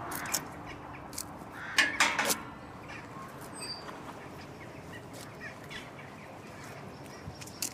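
A crow cawing a few times in quick succession about two seconds in, with a few faint small-bird chirps and light clicks over quiet outdoor background noise.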